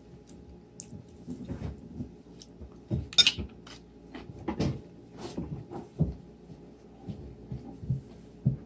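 Irregular light knocks and clinks of dishes and utensils being handled at a meal, with one sharper, noisier clatter a little past three seconds in.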